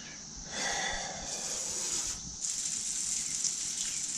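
A steady hiss that comes in about half a second in, breaks off briefly a little past the middle and then carries on.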